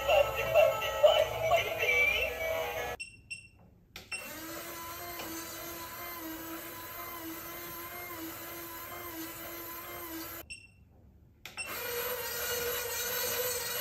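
Electronic song from a skeleton grinding-mill toy, cut off abruptly about three seconds in. After a second of silence the toy, driven at 10 volts, gives a steady droning tone. After another short silence, now at 15 volts, it gives a higher steady tone with more hiss.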